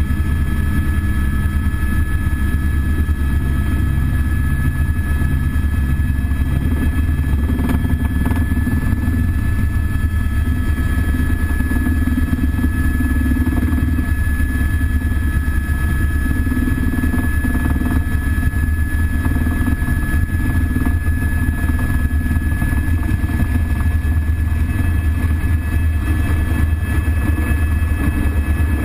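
Cabin noise of an AS350 B3 Écureuil helicopter in flight: a steady deep drone from the rotor and turboshaft engine, with a steady high whine above it.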